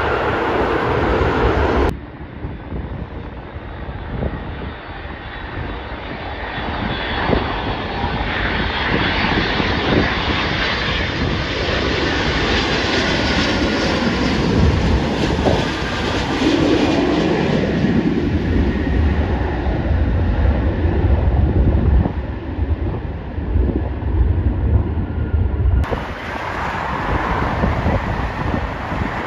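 Jet airliner on final approach, a Delta Boeing 757 with gear down, passing low overhead. Its engine noise swells, sweeps down in pitch as it goes by, and leaves a heavy low rumble. The sound cuts abruptly about two seconds in and again near the end to other airport noise.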